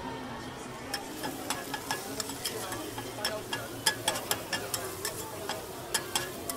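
Metal spatulas scraping and clicking against a flat steel griddle as sliced onion, chili and greens are stir-fried, over a steady sizzle. The sharp spatula clicks start about a second in and come irregularly, several a second.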